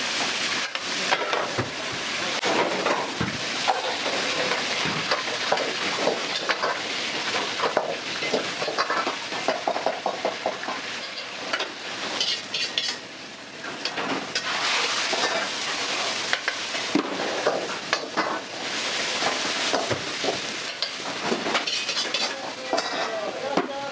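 Food sizzling in a hot wok while a metal ladle rapidly scrapes and knocks against the pan in a continuous, irregular clatter.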